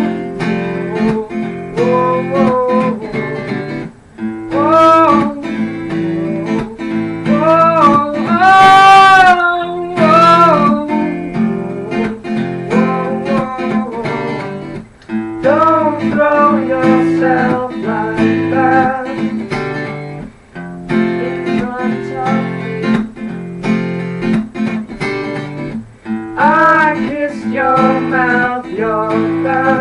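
Acoustic guitar strummed steadily while a woman sings. Her phrases come and go, with stretches of guitar alone between them.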